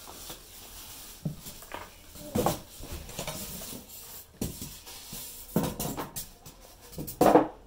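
Plastic bag rustling and crinkling around a wireless subwoofer as it is handled and set down, with a few louder bumps, the loudest near the end.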